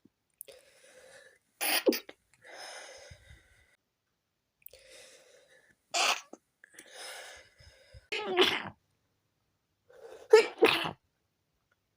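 A person sneezing five times, stifled sneezes from a tickly nose, the last two in quick succession. Breathy gasps come between the sneezes.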